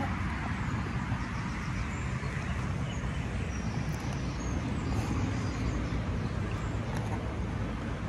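Wind buffeting the microphone: a steady, fluttering low rumble. Faint high bird chirps come through now and then.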